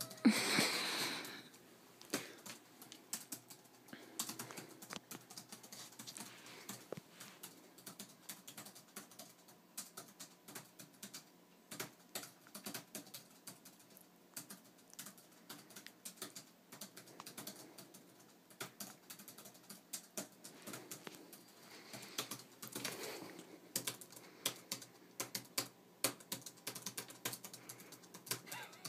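Rapid, irregular typing on a computer keyboard: many light key clicks in quick runs. A brief, louder burst of noise comes right at the start.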